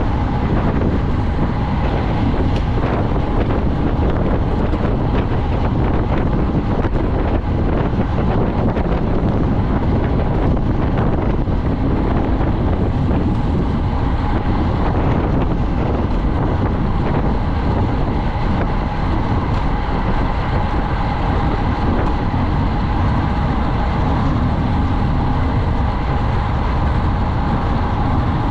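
Steady wind rushing over the microphone of a camera carried on a racing bicycle at speed.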